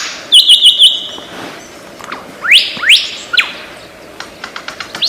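Lyrebird singing: a quick run of four loud whistled notes that each drop in pitch, then after a pause a few loud whistled sweeps, mostly rising.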